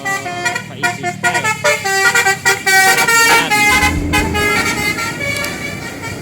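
Indonesian bus 'telolet' basuri musical horn playing a fast melody of quickly changing notes, several horn tones sounding together. About four seconds in, the tune fades under the low sound of the bus engine.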